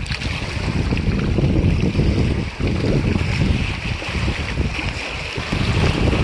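Wind buffeting the microphone: a heavy, gusting rumble that swells and dips, over a lighter hiss of wind and water on the open shore.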